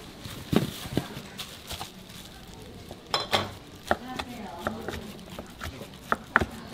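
Kitchen knife slicing through a rice-out gimbap roll and knocking down onto a plastic cutting board: a run of short, sharp knocks from about three seconds in, after a couple of duller thumps near the start.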